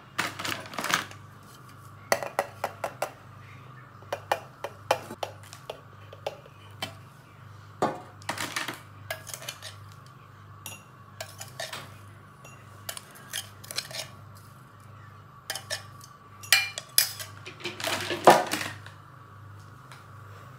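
Metal spoon scraping and knocking against the inside of a stainless steel blender jar: irregular clinks and taps, with a louder run of knocks near the end.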